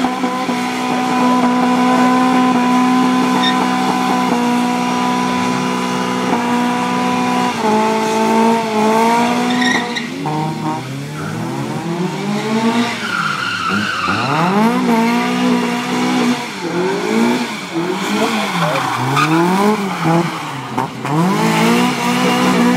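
Drift car engine held at high revs for several seconds, then revved up and down over and over, about once a second, as the car drifts with its tyres squealing and smoking.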